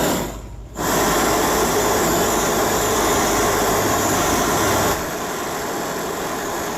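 Steady rushing hiss of the heating tool reheating an aluminium alloy motorcycle wheel that has cooled too far to be pressed safely. It starts about a second in and drops a little in level about five seconds in.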